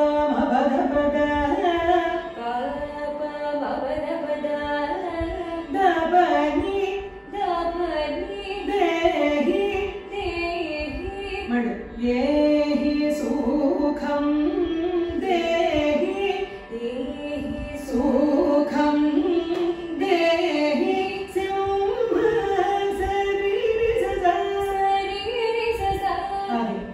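Women singing a Carnatic kriti in raga Janaranjani to a Saraswati veena accompaniment, the melody sliding and bending between held notes.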